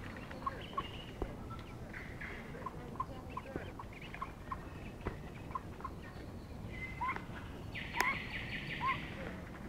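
Mallard hen and her ducklings calling on the water: short soft calls repeated every half second or so, with a louder, rasping call about eight seconds in.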